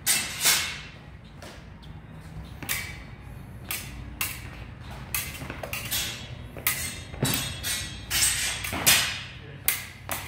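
Steel practice swords clashing and scraping, mixed with feet stamping on rubber gym mats during a sword bout: about fifteen sharp knocks and clacks at irregular intervals. The loudest come near the start and about nine seconds in.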